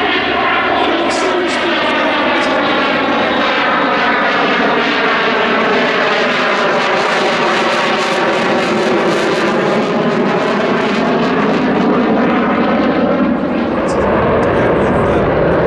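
Twin Eurojet EJ200 turbofans of a Eurofighter Typhoon jet running loud through a display turn. The noise carries a swishing, phasing sweep that drops in pitch and then climbs again as the jet moves across the sky. It grows fuller and deeper near the end.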